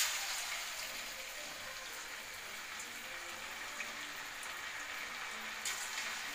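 Masala-coated fish steaks sizzling and crackling in hot oil, a steady dense hiss. Near the end another piece is lowered in and the sizzle swells again.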